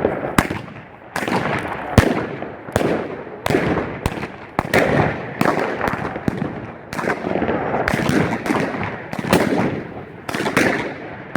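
Fireworks going off in a rapid string of bangs, about one or two a second, each followed by a crackling hiss.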